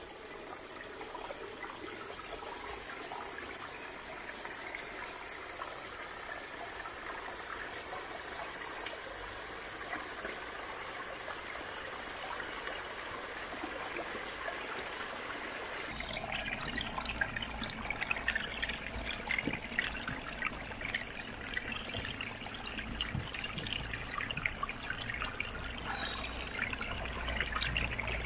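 Water trickling and running in a mountain spring and stream. About sixteen seconds in it becomes louder and fuller, with more low rush under the splashing.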